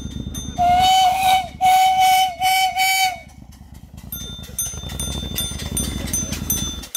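Steam whistle on a homemade steam motorcycle, blown in about four toots over some three seconds, a steady high tone with the first two toots the longest. After it comes a quieter rapid ticking over a low rumble, which stops abruptly near the end.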